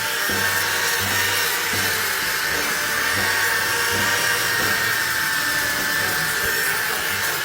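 A power tool runs with a steady high whine, over background music with a shifting low bass line.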